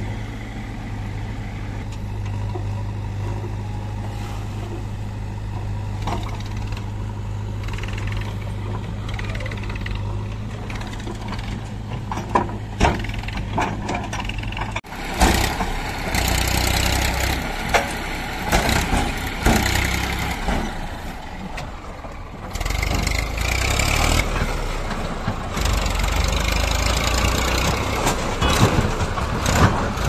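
Massey Ferguson tractor's diesel engine running steadily while hauling a loaded sand trolley. About halfway through it turns louder and rougher, with knocks and rattles, as the trolley is tipped and the tractor drives on.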